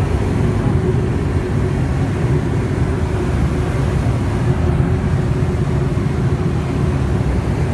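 Turbine Thrush turboprop engine and propeller running steadily in level flight, heard from inside the cockpit as a loud, even drone with a faint constant hum.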